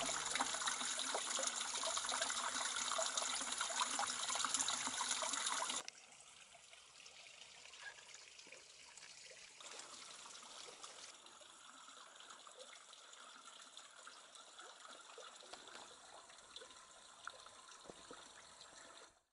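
Water trickling in thin streams off a stone ledge onto wet rocks, a steady splashing hiss that cuts off abruptly about six seconds in, leaving only a much fainter background hush.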